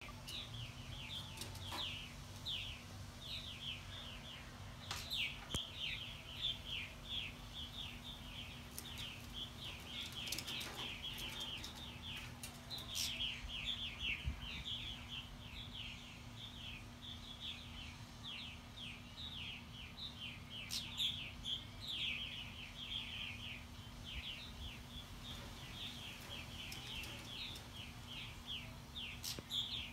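Purple martins calling nonstop in rapid, short, falling chirps: alarm calls from martins mobbing a Cooper's hawk at their house. A faint steady low hum runs underneath.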